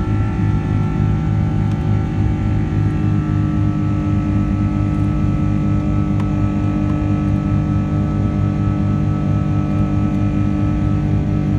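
Airbus A330-200 jet engines heard from inside the cabin: a loud, steady drone of several held tones over a pulsing low hum. Some of the tones shift slightly about three seconds in.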